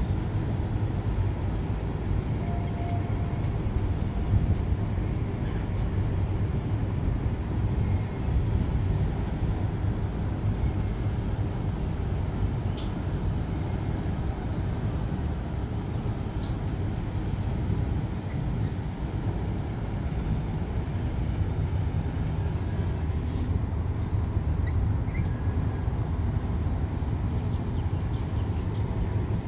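Steady low rumble of harbour boat traffic and city noise, heard from high above the water.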